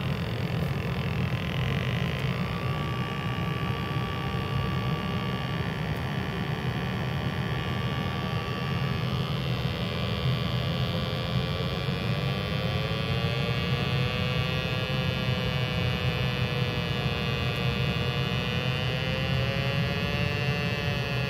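Steady hum of a high-efficiency gas water heater running, its power-vent blower and burner on. A steady tone and, from about halfway through, a slowly wavering tone sound above the hum.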